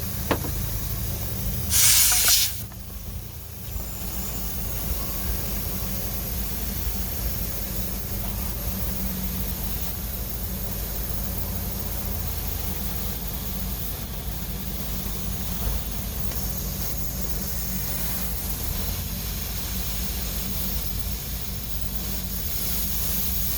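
A short, loud hiss of air about two seconds in as the airline's chuck goes onto the motorbike tyre valve, then a steady hum of the forecourt airline compressor running while the tyre is inflated.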